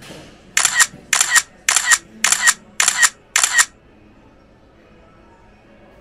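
Six identical sharp double clicks in quick succession, evenly spaced about half a second apart, each ending in a short high chirp.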